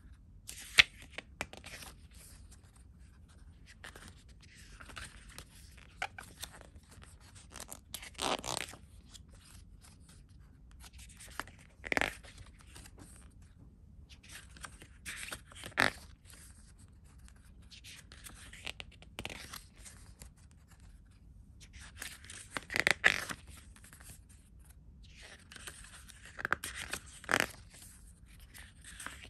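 Glossy pages of a CD booklet being turned by hand: short paper rustles and slides every few seconds, with a few sharp ticks among them.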